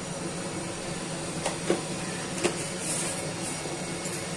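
Steady kitchen hum and hiss with a few light clicks about one and a half, one and three-quarter and two and a half seconds in, as salt is shaken from a plastic container into a kadai of hot oil.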